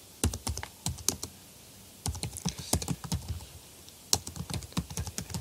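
Typing on a computer keyboard: fast keystroke clicks in three quick runs with short pauses between them.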